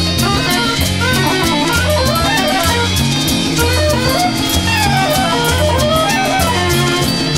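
Rock music led by guitars, with melodic lines winding up and down over a steady beat and a pulsing bass.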